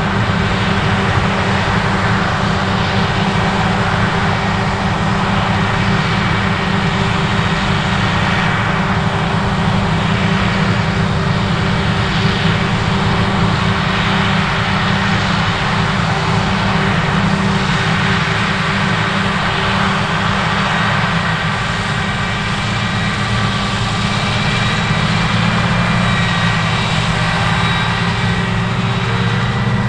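Heavy diesel harvest machinery running steadily under load: a deep, even engine drone with a whine of steady higher tones above it.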